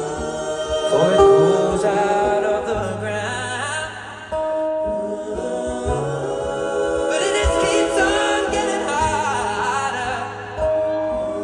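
Live music: layered wordless singing in held, gliding notes over sustained tones, the song's intro before the lyrics begin.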